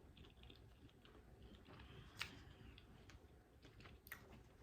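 Near silence with a few faint, short clicks, one a little louder about two seconds in.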